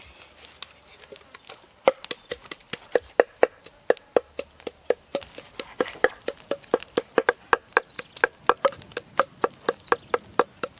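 Wood fire crackling, sharp pops and snaps starting about two seconds in and coming more often, several a second, as the pile of sticks catches and flames up.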